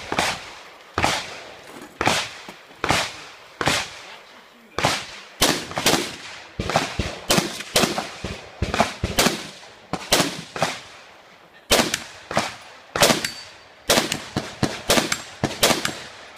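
Rifle fired again and again in quick succession: a shot every half second to a second, some in close pairs, each sharp crack followed by a short echo.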